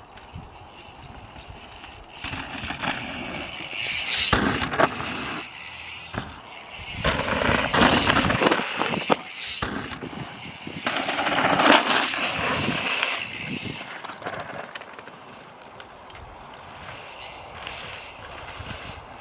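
Mountain bike rolling over a rough trail: tyre noise and rattling, with several louder rushes of noise.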